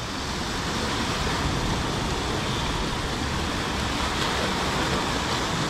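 Sea surf surging and breaking against the rocks below: a steady rushing of foaming water that builds a little in the first second and then holds steady.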